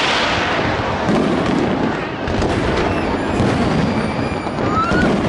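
Fireworks display: a dense, continuous barrage of bangs and crackling, opening with a loud hissing burst and with a short rising whistle near the end.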